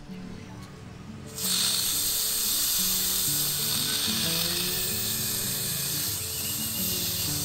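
Pork leg deep-frying in hot oil: a loud sizzle that starts suddenly about a second and a half in, over background music.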